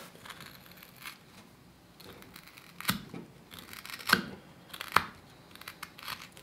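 Small carving knife paring a hand-held piece of wood, rounding over the edges of a carved wooden bone: a few light shaving strokes, then three sharper slices about three, four and five seconds in.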